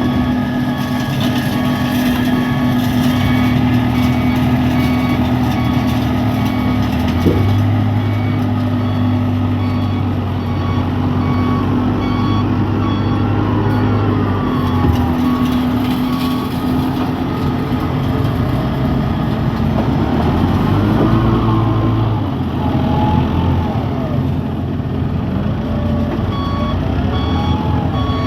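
Heavy diesel road-repair machinery running steadily, with a reversing alarm beeping at the start and starting up again near the end.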